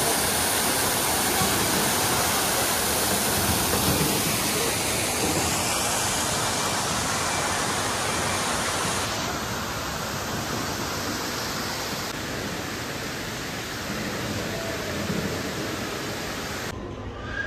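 Steady rushing hiss of falling water from an indoor wall waterfall. The sound changes abruptly at edit cuts, turning softer and duller after about nine seconds and dropping away shortly before the end.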